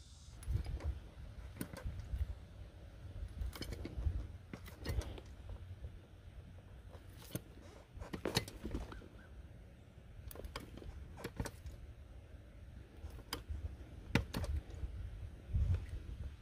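Hand-operated bucket pump being worked to push gear oil into a semi truck differential, its metal handle and linkage clinking at irregular strokes roughly once a second, over a low rumble.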